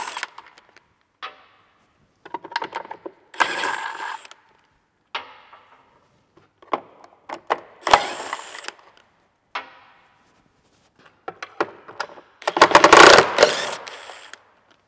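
Cordless power tool run in three short bursts of about a second each, undoing the bolts along the battery-pack rail under the car, the last burst near the end the loudest. Between the bursts come scattered clicks and light metal clatter as the bolts are handled.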